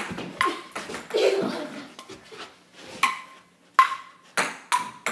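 Ping-pong rally: a ball clicked off paddles and bouncing on the table, about seven sharp hits with a short gap in the middle, several of them ringing with a brief high ping.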